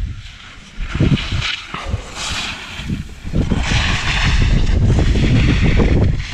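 Wind buffeting the camera microphone during a ski descent, with the hiss and scrape of skis on snow. It is quieter at first and grows louder from about three seconds in as the skier gathers speed.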